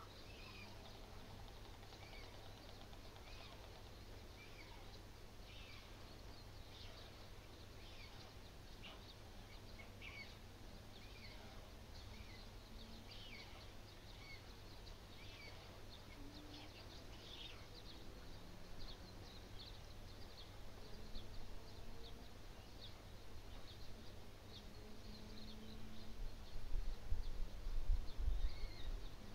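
Small songbirds chirp and sing in the background over a steady low rumble of wind on the microphone. The wind surges louder in gusts near the end.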